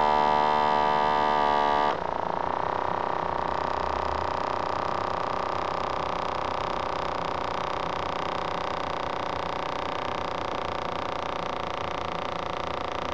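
Omron wrist blood pressure monitor's small air pump running as the cuff inflates: a steady buzzing whine. About two seconds in the tone drops abruptly and gets quieter, then holds steady.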